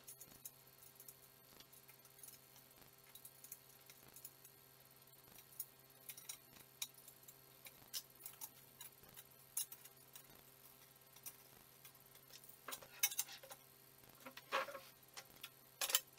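Faint, scattered metallic clicks and clinks of an adjustable wrench, bolts and nuts being handled and worked on a steel frame, with a run of louder clanks in the last few seconds.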